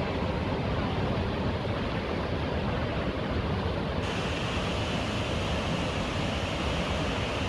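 Rushing water of the Jockfallet waterfall on the Kalix River: a steady, dense roar of white water. About four seconds in it suddenly turns brighter and hissier.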